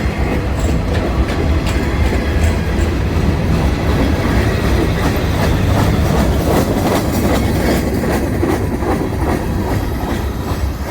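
Cars of a long freight train rolling past close by, the locomotives already gone: a loud, steady rumble with the clickety-clack of wheels over rail joints.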